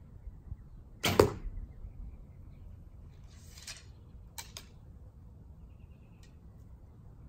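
Junxing Pharos II F261 takedown recurve bow, 35 lb medium limbs with an unsilenced string, shot once: a sharp twang of the released string about a second in, the loudest sound. Later comes a short rustle and two light clicks as the next arrow is handled and nocked.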